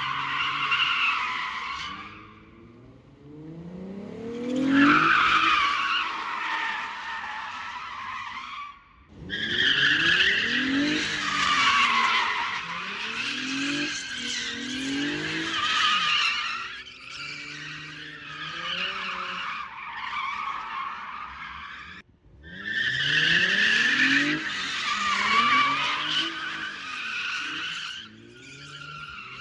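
Infiniti G35 coupe's rear tyres squealing and skidding in about five long bursts as it spins donuts, with short breaks between them. Under the squeal its 3.5-litre V6 revs up again and again through the automatic gearbox and open differential. The rear tyres are worn nearly bald.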